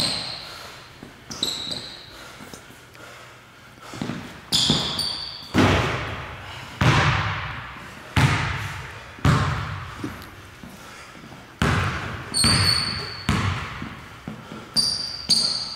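Basketball dribbled on a hardwood gym floor, about one bounce a second through the middle stretch, each bounce echoing in the hall. Short high sneaker squeaks on the court come near the start, around four to five seconds in, and again near the end.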